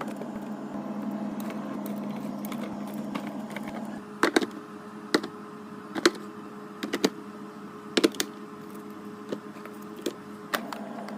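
A fridge being restocked: short sharp clicks and taps as items and containers are set down, about a dozen of them starting a few seconds in, over a steady hum.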